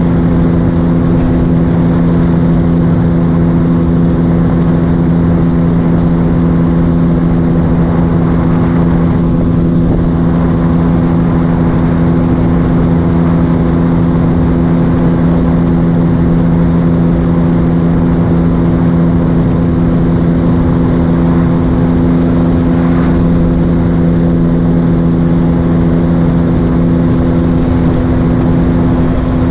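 Motorcycle engine running steadily at highway cruising speed, a constant hum that holds one pitch throughout.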